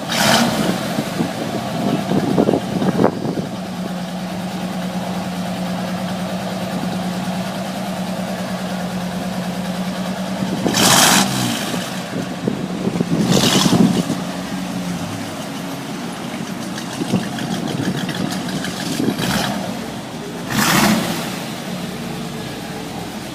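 Hot-rod pickup truck engine idling, revved in short blips about six times, with steady idle between.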